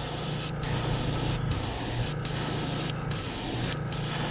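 Gravity-feed airbrush spraying paint onto a small crankbait: a steady hiss with short breaks about once a second, over a low steady hum.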